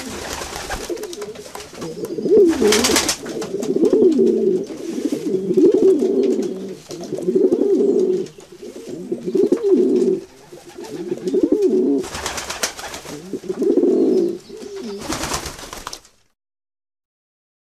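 Pigeons cooing, low rolling coos repeating one after another, with several short bursts of rustling noise among them. The sound cuts off shortly before the end.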